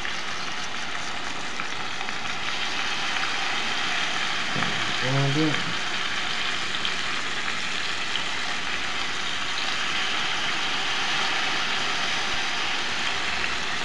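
Rosemary-skewered salmon fillets sizzling steadily in hot macadamia oil in a stainless steel frying pan as more fillets are laid in. The sizzle grows a little louder about two seconds in.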